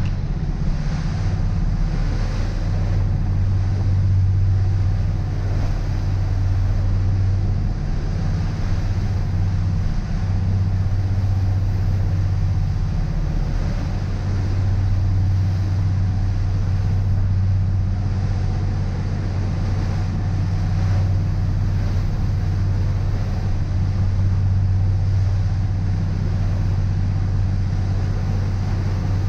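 Motor cruiser underway at speed: a steady low engine drone with an even rush of water and wind over the hull, unchanging throughout.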